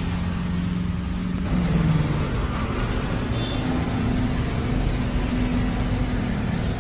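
Steady low rumble of motor vehicle engines, its hum shifting slightly in pitch.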